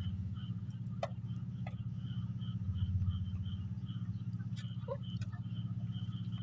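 A steady low engine hum, with a high, regular chirp two or three times a second over it and a few faint clicks.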